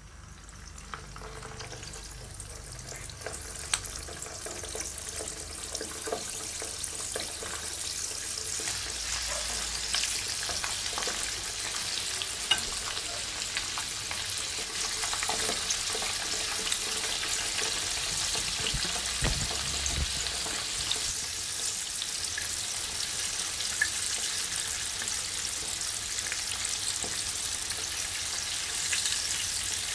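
Sea bream pieces frying in hot oil in a pan: a sizzle with many small crackles and pops. It grows louder over the first several seconds as the fish goes in, then holds steady.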